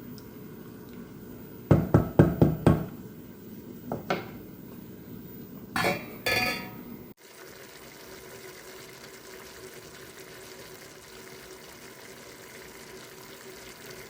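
Kitchen clatter of dishes and utensils: a quick run of about five knocks, two more a couple of seconds later, then a brief rush like liquid being poured. It cuts off suddenly about seven seconds in, giving way to a steady faint hiss.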